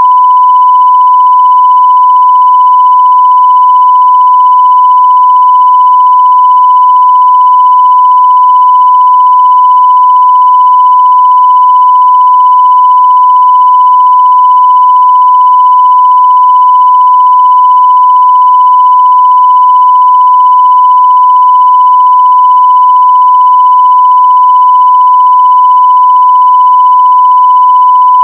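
Steady 1 kHz line-up reference tone played with colour bars at the head of a videotape, one loud unbroken beep at a single pitch.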